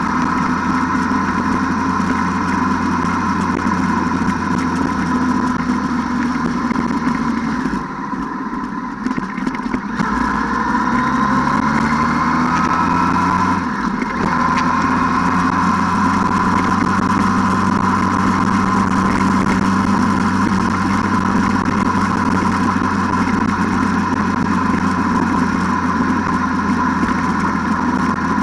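ATV engine running steadily under way; it eases off about eight seconds in, then picks up again with a rising pitch, with another brief dip a few seconds later.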